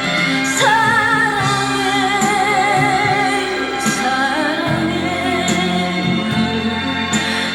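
A Korean ballad playing back from a cassette tape on a hi-fi: a woman sings long, held notes with vibrato over a steady band accompaniment, with a light cymbal tap about every second and a half.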